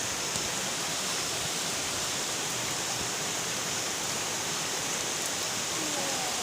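Steady rush of floodwater: an even wash of noise with no pauses or changes.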